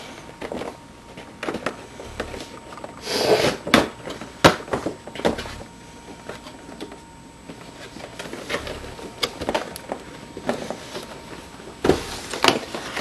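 Cardboard action-figure box being handled and opened: scattered rustles, scrapes and sharp clicks of cardboard and plastic packaging, with a longer rustle about three seconds in and another near the end.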